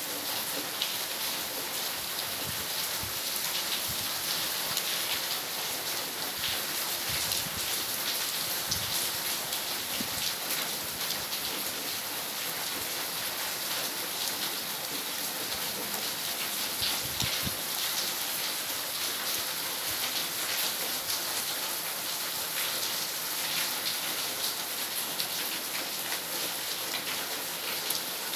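Steady rain falling, a dense hiss full of fine drop patters.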